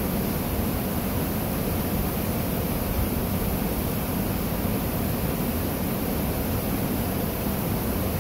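Steady rushing of running water, an even hiss and low rumble that holds level without a break.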